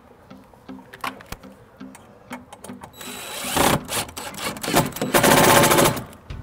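Cordless drill/driver driving screws to fasten a door's post interlock, in two runs, about three and a half seconds in and again about five seconds in, after a few light handling clicks.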